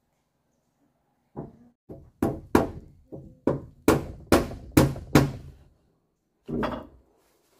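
A run of about ten sharp knocks, two to three a second, from a tool striking wood during house building, then one more knock after a short pause.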